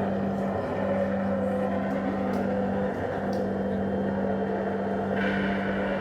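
Electronic drone soundscape of a projection-mapping artwork: a steady low hum under layered held tones, with a brighter, higher layer coming in near the end.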